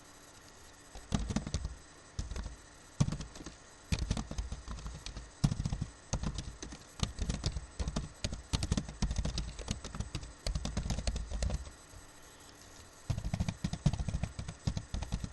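Typing on a computer keyboard: quick runs of key clicks in several bursts, with a pause of about a second and a half near the end before a last burst.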